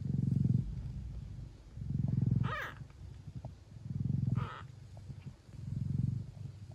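Traditional Siamese (Thai) mother cat purring hard while nursing her kittens, in deep swells about two seconds apart. Two brief high squeaks come over the purr, a third of the way in and again past the middle.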